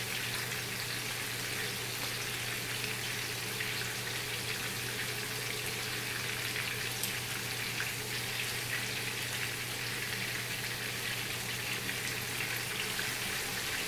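Chicken leg pieces shallow-frying in oil in a pan, a steady sizzle with a few faint crackles, over a low steady hum.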